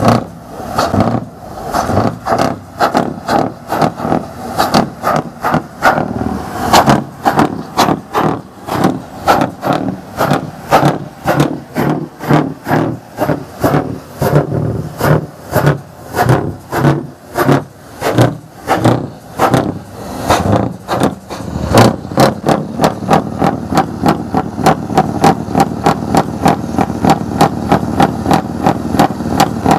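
Scania R620 V8 truck engine through its side exhaust pipe, the throttle blipped again and again in a fast even rhythm of about two to three revs a second. About two-thirds of the way in it settles into steadier running, with quicker, lighter blips on top.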